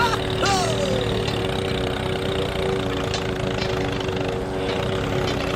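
Small motor of a miniature DIY tractor running steadily with an even hum. Right at the start come two short falling whistle-like tones.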